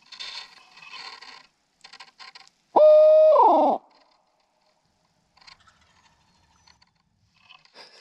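A single loud owl hoot blown on an owl locator call, about three seconds in. It is held on one pitch for most of a second, then drops at the end. It is used to make a roosted wild turkey shock-gobble.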